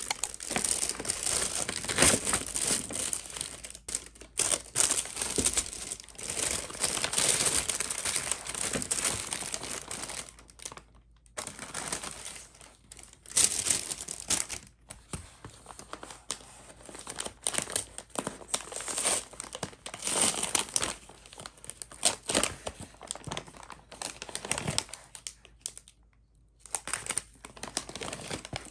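Paper bags and plastic food wrappers rustling and crinkling as they are handled and opened, in bursts with short pauses.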